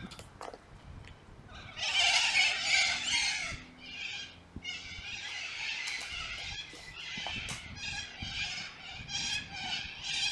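Birds calling: a run of repeated harsh calls, loudest about two to three and a half seconds in.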